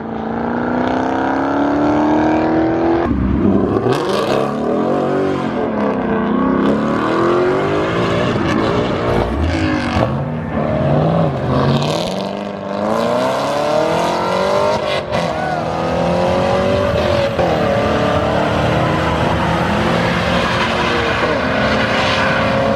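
Car engines revving hard at a car meet, their pitch climbing and dropping again and again. Near the end one engine holds a long, steady rise in pitch.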